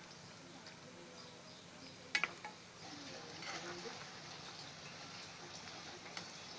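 Urad dal vadas frying in hot oil, a low steady sizzle, with one sharp click about two seconds in.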